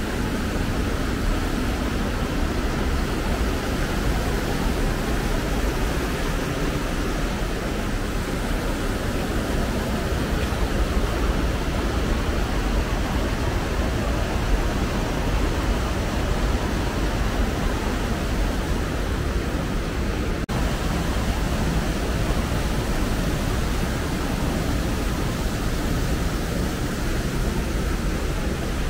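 Steady rush of a fast mountain stream running through a rocky gorge.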